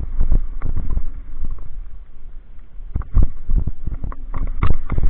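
Downhill mountain bike rattling fast over a stony dirt trail: irregular knocks and clatter from the tyres, frame and chain hitting rocks and bumps, over a steady low rumble.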